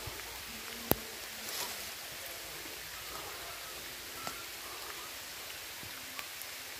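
Steady hiss of rain falling on forest foliage, with one sharp click about a second in and a few faint ticks later.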